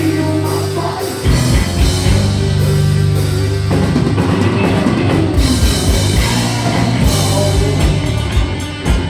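Heavy metal band playing live: distorted guitars and bass hold a chord, then the drum kit comes in about a second in with fast, driving kick-drum hits under the guitars.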